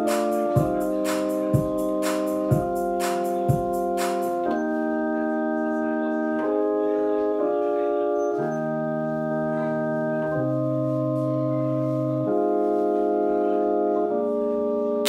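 Electronic live music: sustained organ-like chords, with a kick-like beat about once a second for the first four seconds. After that the chords play alone and change every second or two, with a lower bass note in the middle.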